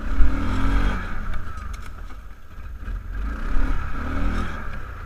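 Kawasaki ATV engine revving in two bursts, one near the start and another about three and a half seconds in, with a steady rumble in between.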